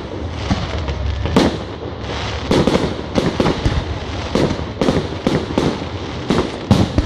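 Fireworks display: aerial shells bursting in a rapid run of bangs, about a dozen, coming thick and fast from the middle of the stretch on, over a continuous crackle and hiss.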